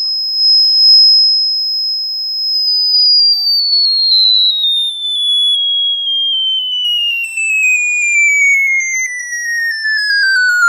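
Homemade tone generator's speaker playing a pure, steady, high-pitched tone at the top of its range. After about two and a half seconds the tone slides smoothly down in pitch as the frequency knob is turned, growing buzzier as it falls.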